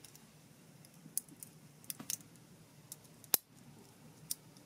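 Stainless steel link bracelet and folding clasp of a Seiko Sumo dive watch clicking and clinking as they are handled: about six sharp metallic clicks, the loudest a little past three seconds in.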